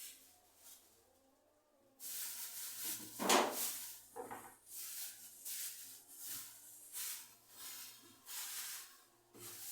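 Repeated scrubbing or rubbing strokes on a surface, about two a second, starting about two seconds in, with one louder knock just after.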